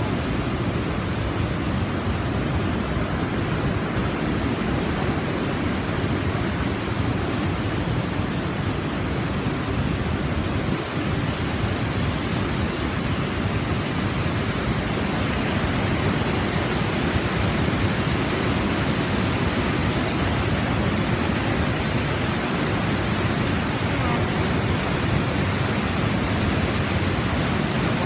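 Fast river water and waterfall rushing steadily, an even wash of noise heaviest in the low end, slightly louder in the second half.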